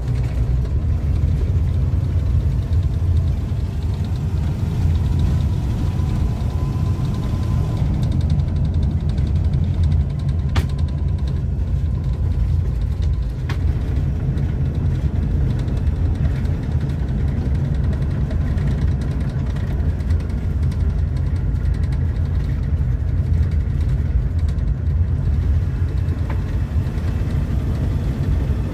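Steady low rumble of an engine running, heard from inside the parked motorhome's cabin.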